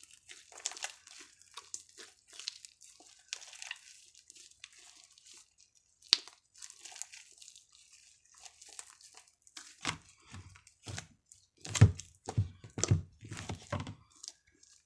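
Fluffy slime being kneaded, squeezed and pulled apart by hand close to the microphone while activator is worked in: irregular sticky crackling and tearing sounds. There is a sharp click about six seconds in, and from about ten seconds on a run of louder strokes with dull thumps in them.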